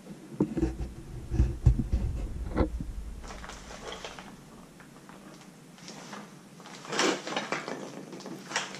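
Handling noise from a hand-held camera: low thumps and knocks in the first few seconds, a louder clatter of knocks about seven seconds in, and one more sharp knock near the end.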